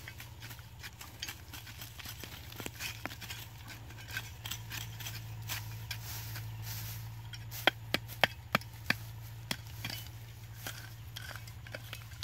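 Small plastic trowel scraping and digging into dry soil and grass, with a quick run of sharp knocks a little past the middle, over a steady low hum.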